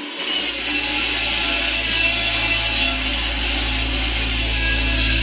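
Welding arc running steadily: a continuous sizzling crackle over a low electrical hum from the welder.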